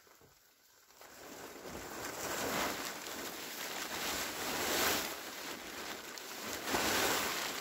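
A large tarp being dragged and pulled over a crawler tractor, rustling and crackling in repeated swells, loudest about five seconds in and again near the end.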